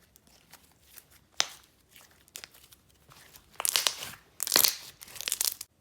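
Jelly slime being squished and stretched by hand, giving scattered small pops and a sharp click, then three loud crackling bursts that stop abruptly near the end.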